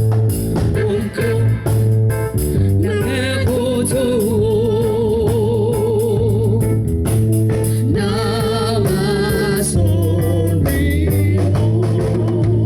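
Band music played through a sound system: a singer holds long notes with vibrato over steady bass and regular drum hits.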